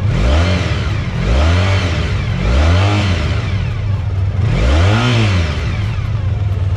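Honda VF1000R's 998cc V4 engine being revved four times, each blip rising in pitch and falling back to idle.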